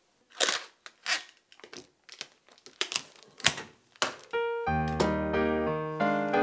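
Clear plastic wrapping crinkling in a series of short rustles as a hand handles a folded towel wrapped in it. About four and a half seconds in, keyboard music with a steady beat starts and carries on.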